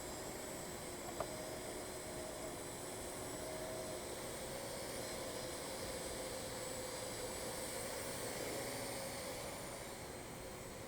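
Parrot AR.Drone 2.0 quadcopter's four electric motors and propellers running steadily, a hissing whir with a steady whine in it, and one sharp click about a second in.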